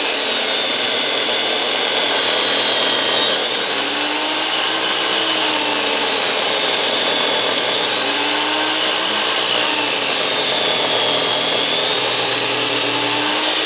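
DeWalt 12-inch miter saw with an 84-tooth blade running and cutting down through a roll of vinyl wrap. It gives a steady motor whine that dips and rises in pitch several times during the cut.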